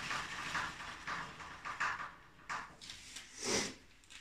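The freewheeling rear wheel of a Viarelli Scrambler moped, spun by hand, with its freshly tensioned drive chain running over the sprockets: a whirring hiss that fades in uneven swishes as the wheel slows. A louder rustle comes about three and a half seconds in.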